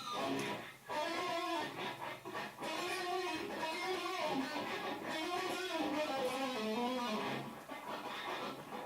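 Instrumental electric guitar music, its notes bending up and down in arcs.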